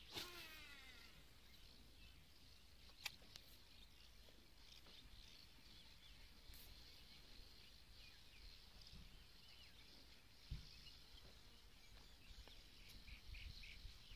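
Near silence: faint outdoor ambience of insects and birds chirping steadily, with a quick falling call right at the start and a couple of sharp clicks.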